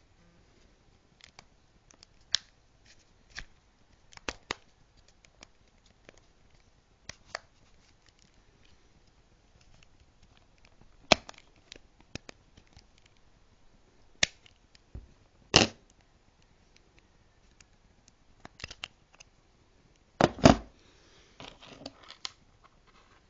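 Irregular plastic clicks, snaps and light scrapes of a Nokia 5800 XpressMusic mobile phone's casing and small parts being handled and pried apart. A few louder snaps come about halfway through and near the end, the last followed by a short spell of scraping.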